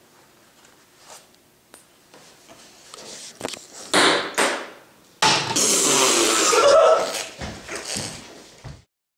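A few light taps, then loud excited yelling and cheering, with the loudest stretch about five to seven seconds in, cut off abruptly near the end.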